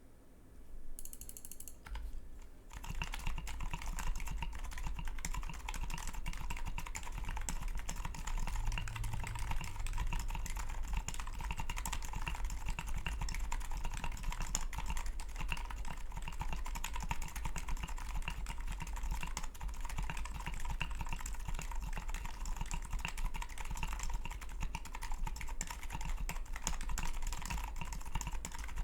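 Typing on a Clever Blue Ridge 60% custom mechanical keyboard with Dynacap switches, an integrated POM plate and DCS keycaps. A few scattered keystrokes are followed, about three seconds in, by a fast, dense, continuous run of key clacks.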